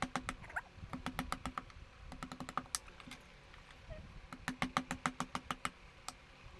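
Fine-toothed back saw rasping into a wooden spoon blank in short runs of quick strokes. Each run is a rapid series of ticks, with a pause of a second or two between runs.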